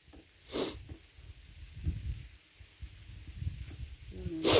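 A cricket chirping steadily, about two chirps a second. Two short noisy sounds cut across it, one about half a second in and a louder one at the very end.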